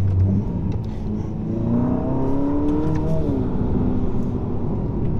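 Ferrari SF90 Stradale's engine heard from inside the cabin under acceleration. Its pitch climbs for about a second and a half, drops sharply at an upshift about three seconds in, then runs on steadily.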